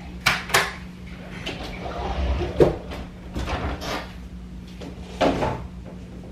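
Closet doors being handled and pushed shut: a handful of knocks and rattles, the loudest about two and a half seconds in, over a steady low hum.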